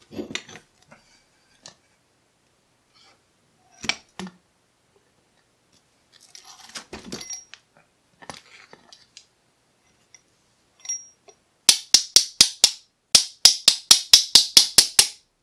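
Small clicks and rattles of lock parts being handled, then two quick runs of sharp taps, about five a second, in the last few seconds. The taps are strikes on the opened lock to knock loose a stuck pin stack in its third chamber.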